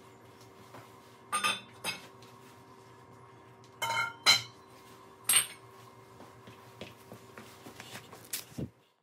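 Metallic clinks and clanks of hand tools and steel parts being handled, several sharp hits with the loudest about four seconds in, over a faint steady hum. The sound cuts off just before the end.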